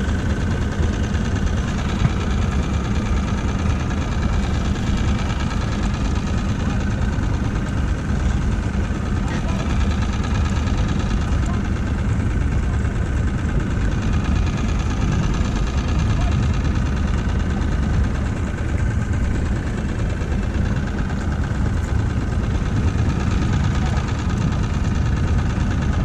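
Small outboard motor on an inflatable boat running steadily at low trolling speed.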